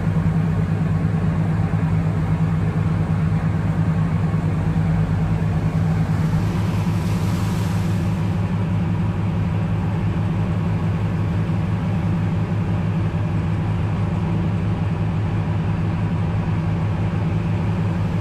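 Fishing boat's engine running at a steady speed, a constant low drone heard from inside the boat's cabin.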